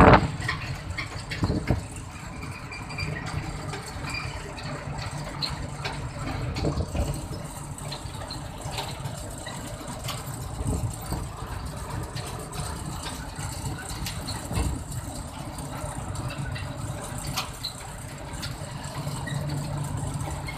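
Vehicle engine and road noise heard from inside the cab while driving at highway speed: a steady low rumble, with a sharp knock right at the start and a few smaller knocks from bumps.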